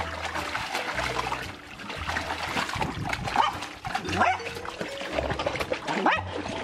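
Water splashing in a plastic paddling pool as a small dog moves about in it, with a dog's short rising cries about four and six seconds in.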